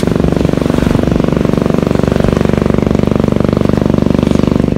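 Small boat's engine running steadily at constant speed, with an even, rapid pulse.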